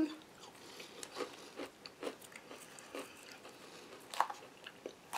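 A person chewing a mouthful of romaine salad with crunchy parmesan crisps: irregular small crisp crunches, one louder crunch about four seconds in.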